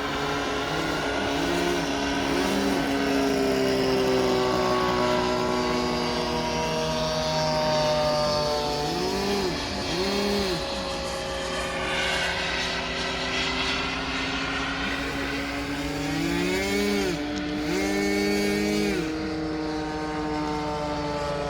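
Small model jet turbine, about 4.5 kg of thrust, running steadily with a whine. Its pitch swells up and down briefly a few times.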